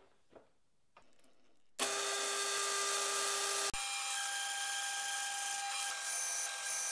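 A few light knocks as the plate is set in the vise, then about two seconds in a milling machine's annular cutter starts cutting through stainless steel plate: a steady machining whine with several tones over a hiss. The pitch of the tones shifts abruptly about four seconds in, and higher squealing tones come and go near the end.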